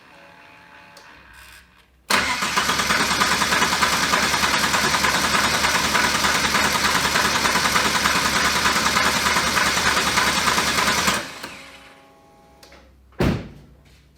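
Turbocharged Ecotec V6 engine of a Holden Commodore being started: a faint whirr for about two seconds, then the engine catches suddenly and runs loud and steady for about nine seconds before it is shut off and winds down. A single sharp knock near the end.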